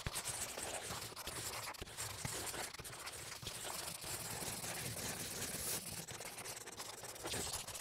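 Pen scratching across paper as sketches are drawn: a continuous scratchy rasp with many small ticks.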